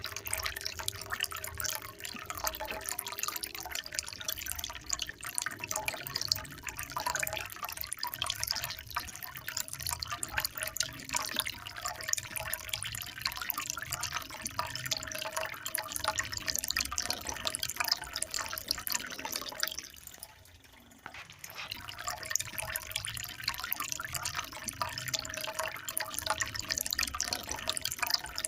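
Water trickling and splashing steadily in a continuous patter of small drips and splashes. The sound dips briefly about twenty seconds in, then resumes.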